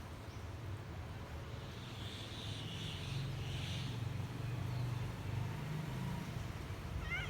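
Cat purring close up, a steady pulsing low rumble. A few short, rising, high-pitched kitten mews come just before the end.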